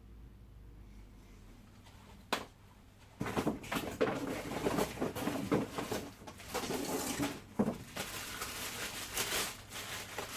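Packaging being handled and unwrapped: a single click a little over 2 seconds in, then, from about 3 seconds in, continuous irregular rustling and crinkling with small clicks and knocks as the stick vacuum's main unit is taken out.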